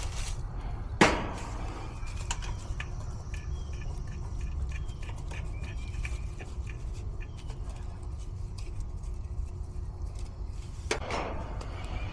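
Refrigeration vacuum pump running steadily with a low hum, evacuating a heat pump's refrigerant lines after a leak repair at the filter drier. A sharp click comes about a second in and a brief rushing noise near the end.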